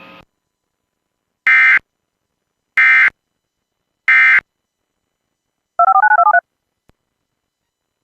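Three short bursts of EAS end-of-message data tones, the digital code that signals the end of the alert, about 1.3 seconds apart. About six seconds in comes a quick run of paired electronic beeps like touch-tone dialing.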